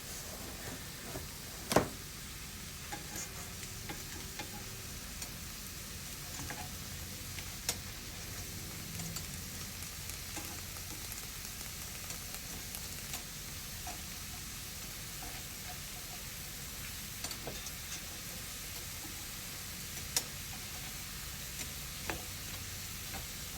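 Shrimp frying in olive oil in a pan, a steady sizzling hiss. Scattered sharp clicks and pops sound over it, the loudest about two seconds in.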